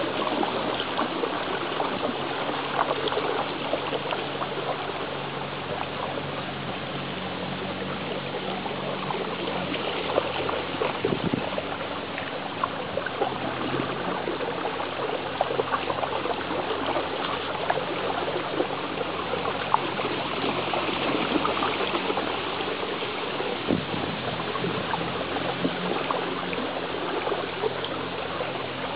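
Steady churning and trickling of water from a pedal boat's paddle wheels under way, with small splashes throughout and a faint low hum underneath.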